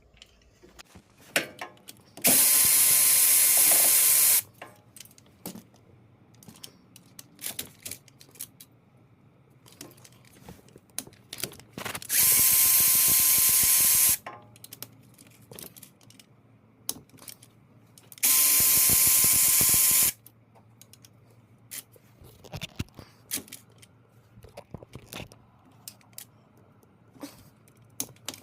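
A power ratchet running three times in bursts of about two seconds, a hissing whine, as bolts are run out during an engine teardown. Between the bursts come scattered clicks and small metal knocks of tools being handled.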